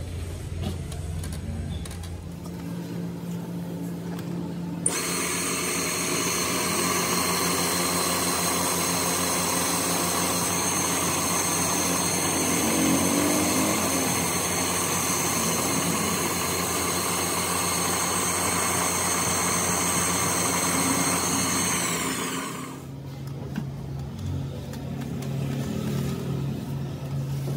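Belt-driven buffing spindle running with a steady motor hum. About five seconds in, a steel dumbbell rod is pressed against the spinning polishing wheel, adding a loud hiss with a high whine. Near the end that whine dips in pitch and stops, leaving the motor's lower hum.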